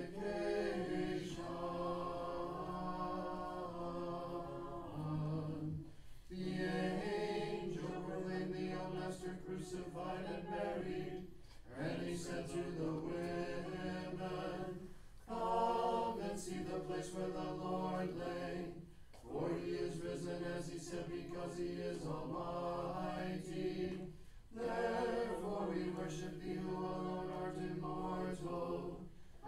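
Unaccompanied Orthodox vespers chant: a few voices sing in phrases of about four to six seconds, each held largely on one steady note, with short breaks for breath between them.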